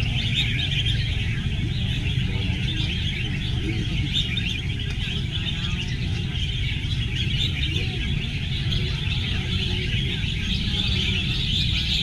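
Many red-whiskered bulbuls singing at once: a dense, unbroken chorus of high chirps over a steady low rumble.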